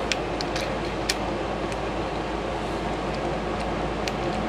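Small sharp clicks of 3D-printed plastic animatronic eye parts being snapped and fitted together by hand, a few times, over a steady background hum.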